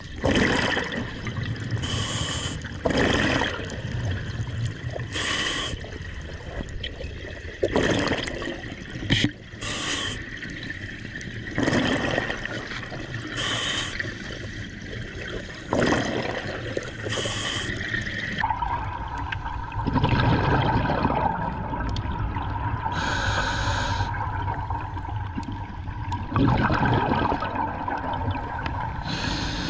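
Scuba regulator breathing heard underwater: a hiss on each inhale and a rush of exhaled bubbles every few seconds. About two-thirds of the way in the sound turns duller and a faint steady hum joins it.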